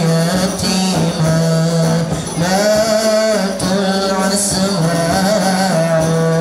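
A male voice singing a sholawat solo through a microphone, long held notes wavering and bending in ornamented runs.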